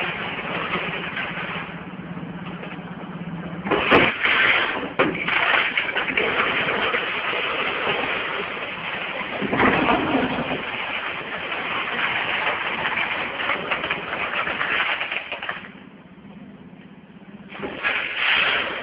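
Automatic screw counting and packaging machine running: loose metal screws clatter and rattle through its feeder, conveyor and counting chute, with a steady low hum at first. The clatter drops away for about two seconds near the end, then returns.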